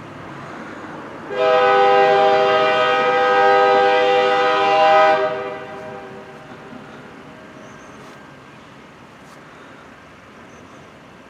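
Freight locomotive air horn sounding one long blast of about four seconds, a chord of several notes, starting about a second in. A steady rumble of the passing train follows.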